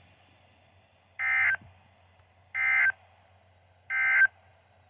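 Emergency Alert System end-of-message signal: three short, identical bursts of digital data tones, about a second and a half apart, marking the end of the weather warning.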